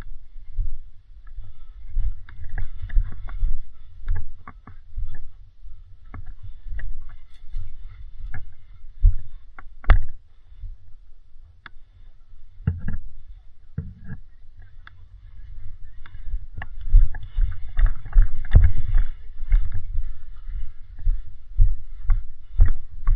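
Handling noise from a body-worn camera as the player moves on foot: low thuds at about walking pace with rustling, and a few sharp clicks.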